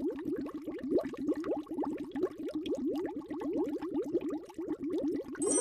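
Underwater bubbling sound effect: a steady stream of small bubbles, each a short rising blip, many a second. A bright chime comes in right at the end.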